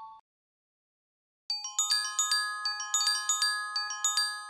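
Short intro jingle of quick, bright, bell-like struck notes, several a second, each ringing on, that begins about a second and a half in, after the last of a two-note chime fades out.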